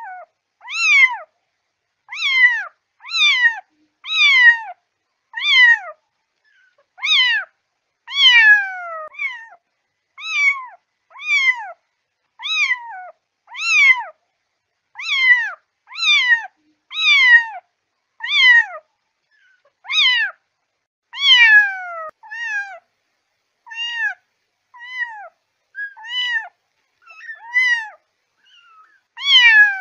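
Kitten meowing over and over, about one call a second, each call high and falling in pitch; the calls grow shorter and flatter in pitch in the last several seconds.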